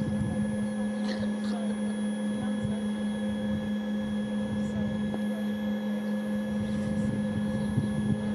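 Steady, unchanging hum with a fainter high whine from the machinery serving a parked Dash 8-300 turboprop whose propellers are not turning.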